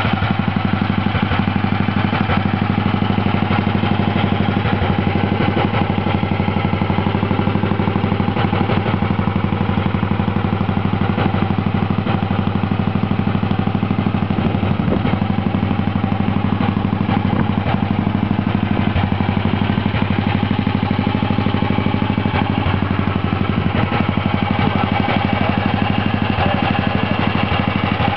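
Neville Evans 500 cc single-overhead-cam single-cylinder engine of a Norton Manxman racing motorcycle idling steadily, with an even, unchanging beat.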